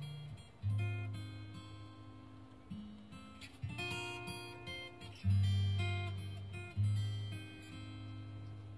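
Acoustic guitar playing slowly: plucked notes and chords that ring out and fade, with deep bass notes every second or two.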